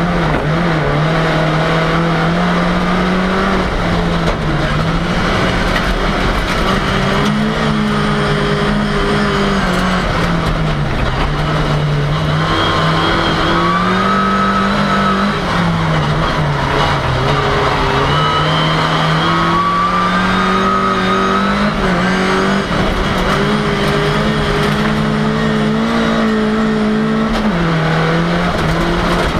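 Ford Cortina engine heard from inside the car under racing load, revving up and falling back again and again as the driver accelerates and lifts through corners, with a sharp drop in revs near the end.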